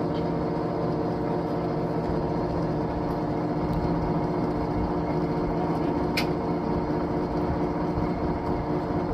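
Big electric motor of a canal lock's valve machinery running with a steady hum of several pitches, with a short click about six seconds in.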